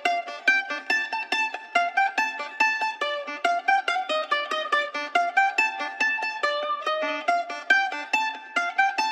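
Background music: a melody of quick plucked-string notes.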